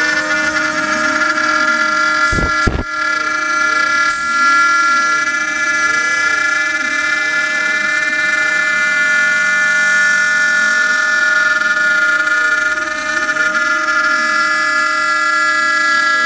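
CNC router cutting a circle: the spindle runs with a steady high whine, and beneath it the stepper motors whir in tones that rise and fall again and again as the axes trace the curve. Two sharp knocks come close together about two and a half seconds in.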